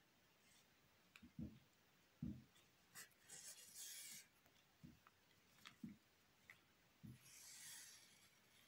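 Faint rustling and rubbing of wool yarn being drawn through the stitches of a crocheted doll head with a sewing needle, twice in longer hissy pulls, with a few soft knocks from handling.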